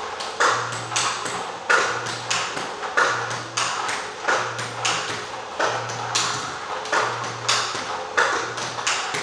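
Table tennis ball being hit repeatedly with a forehand stroke and bouncing on the table: sharp, hollow clicks in a steady, even practice rhythm, with a stroke cycle about every second and a bit.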